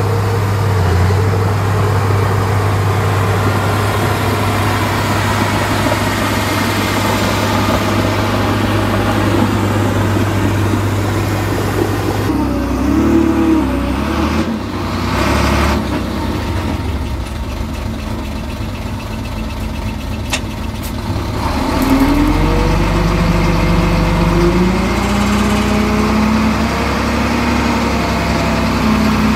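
Heavy diesel engine of earthmoving machinery running steadily. Its note shifts about twelve seconds in, then climbs and revs unevenly from about twenty-two seconds in.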